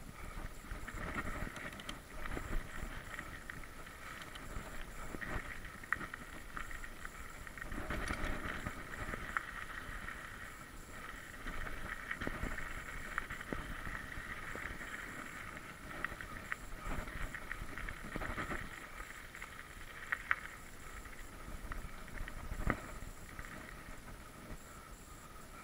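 Mountain bike being ridden over a rough dirt track: tyre and trail noise with frequent rattling knocks and clicks from bumps, over a steady high buzz.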